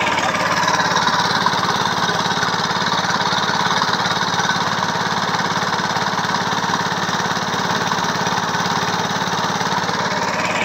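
Boat's small engine running steadily at constant speed, with a fast, even firing beat.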